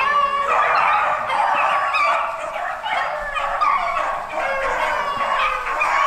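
A pack of beagles baying in full cry together, several overlapping voices going without a break, as the hounds run a rabbit's scent trail.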